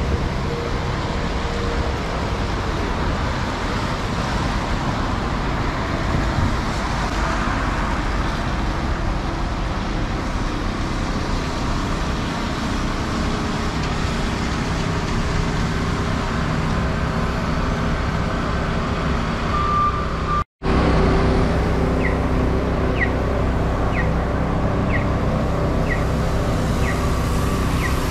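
Steady city traffic on wet streets: a continuous wash of tyres and engines. The sound cuts out for a moment about two-thirds in, and then short chirps repeat about once a second, typical of a pedestrian crossing signal at the intersection.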